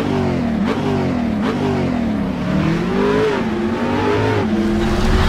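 A car engine revving, its pitch rising and falling several times.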